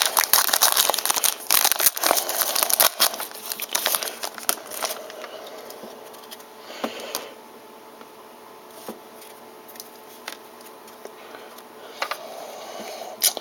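Trading-card pack wrapper crinkling and tearing open, dense crackling for about the first five seconds. Then quieter handling with scattered light clicks as the cards are taken out.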